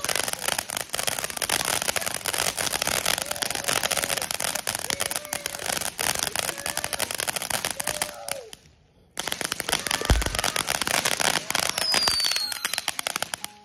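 Ground fountain firework spraying sparks, a dense rapid crackling over a hiss. It breaks off for about half a second a little past the middle, then resumes with a single low thump and a brief falling whistle near the end.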